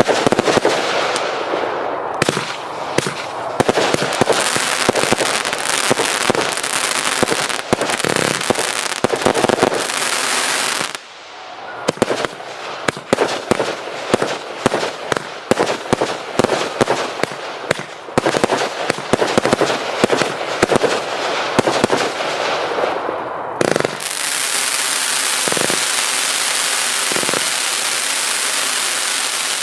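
A 400-shot firework compound cake firing rapid shots and bursts in close succession. There is a brief lull about eleven seconds in. For the last few seconds a continuous hiss runs under a few scattered bangs.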